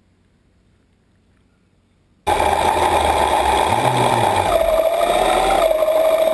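Near silence, then about two seconds in a sudden loud, steady whine over a low rumble, its pitch dipping and then rising again. It is the electric thrusters of a VideoRay Pro4 underwater ROV, heard under water.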